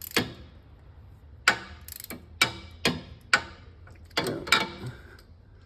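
Hand ratchet with a T30 Torx bit clicking in short, irregular strokes on the crankshaft position sensor bolt, about one click every half second; the bolt is not yet threaded in far enough for the ratchet to take hold.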